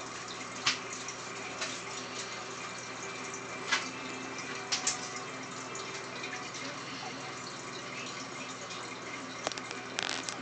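Aquarium water bubbling steadily, with a low steady hum from its running equipment and a few faint ticks.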